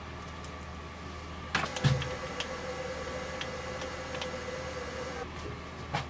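Metal clunks from parts being handled at a metal lathe: a sharp double knock, then a steady faint hum for about three and a half seconds with a few light ticks, and another knock near the end, over a constant low workshop hum.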